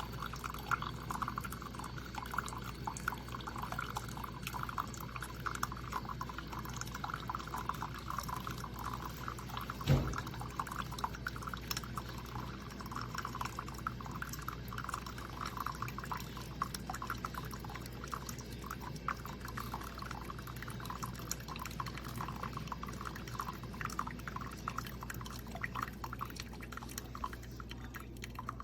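Instant Pot K-Cup single-serve coffee maker dispensing, a steady crackling trickle of liquid pouring into a cup, with one sharp knock about ten seconds in.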